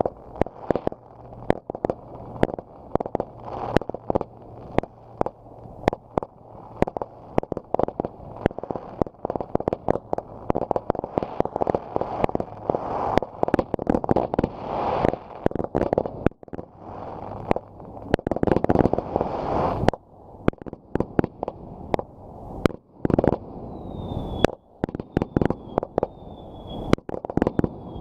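Fireworks going off in rapid succession: a dense string of sharp bangs with swells of crackling, heaviest about halfway through and again about two-thirds through. Near the end, short high falling whistles repeat about once a second over the bangs.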